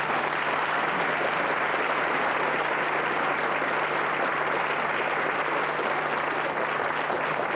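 Studio audience applauding steadily, breaking out as a song ends.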